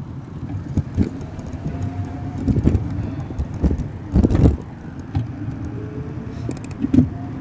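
City traffic heard from a moving bicycle: a steady low rumble of cars and tyres, with knocks and rattles from the bike over the pavement and a louder rumble about four seconds in.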